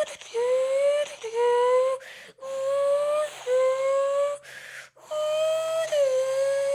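A person imitating a Lexus LFA's engine with their mouth, as heard from inside the car. A whistly hummed tone climbs in pitch in runs of about a second, like shifts up through the gears, with quick breaths between. Near the end the pitch dips and then holds steady.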